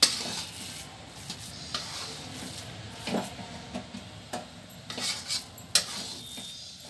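A flat spatula stirring and scraping a thick coconut and condensed-milk burfi mixture around a metal kadhai, with irregular scrapes and clatters against the pan, the sharpest right at the start. The mixture is being stirred continuously while it cooks down until it leaves the sides of the pan.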